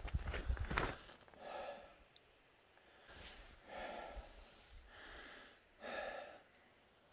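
A person breathing heavily through the nose and mouth, roughly one breath a second, with a sharper sniff about three seconds in. A few crunching steps or clicks on rocky ground come in the first second.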